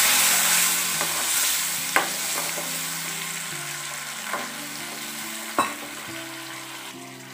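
Lemon juice sizzling in hot tempering oil in a metal kadai, the hiss loud at first and dying down steadily. A metal spoon stirs through it, clicking against the pan three times.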